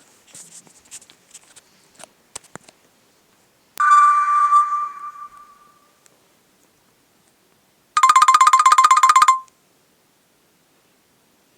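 Nokia C2-01 mobile phone playing two alert tones. About four seconds in, a single bell-like chime rings out and fades over about two seconds. Near the end comes a fast trill of beeps lasting about a second and a half. A few soft clicks come first.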